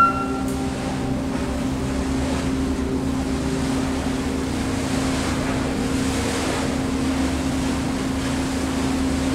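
Boat engine running with a steady low hum, under the rush of wind and breaking waves on a rough sea. A brief tone cuts off right at the start.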